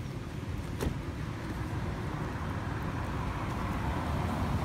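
A road vehicle approaching, its noise growing steadily louder, with a single light click about a second in.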